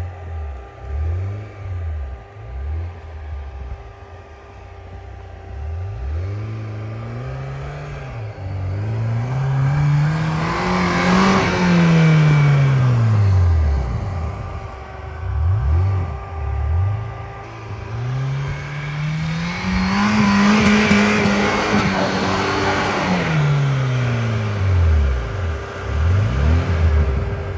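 Lada Niva 4x4's 1.7-litre four-cylinder petrol engine revs hard as the car churns through deep snow. A run of quick short rev blips alternates with two long revs that climb and then sag, and at their peaks a rush of noise comes from the spinning wheels throwing snow.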